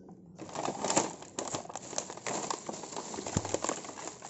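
Plastic bag and clear plastic toy packaging crinkling and rustling as a boxed toy truck is handled and set down into the bag, starting about half a second in, with many small crackles.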